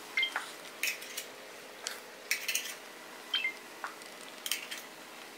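Scattered light clinks and taps of a utensil against a metal stockpot, a few of them with a brief high ring, over a faint steady background hum.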